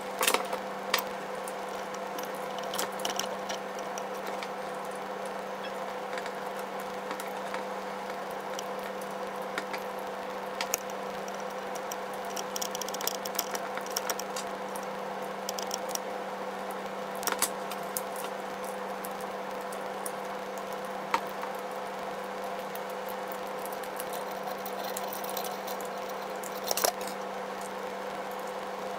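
Scattered small clicks and ticks of a screwdriver and screws as a quadcopter's brushless motor is screwed onto its 3D-printed frame, over a steady low hum.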